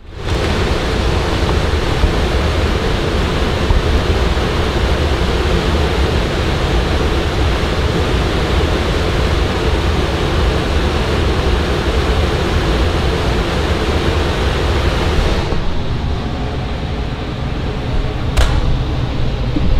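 Loud, steady rush of air through an HVAC return-air filter grille, noisy enough to measure with a sound meter; the owner blames the noise on the filter being sucked up into the ducting. About three-quarters through the hiss drops away, and two sharp clicks follow near the end.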